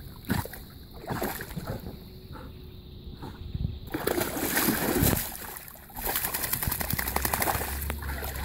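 Flat-coated retriever wading and splashing through shallow lake water. The splashing gets louder about four seconds in, as the dog plunges its head into the water.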